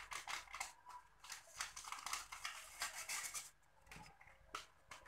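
Cornstarch and baking powder sifted by shaking a plastic sieve: dry, scratchy shaking for about three and a half seconds, then a few light taps.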